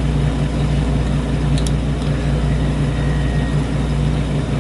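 A steady low mechanical hum drones throughout, with a couple of faint metallic ticks about a second and a half in from the lock pick working the pins.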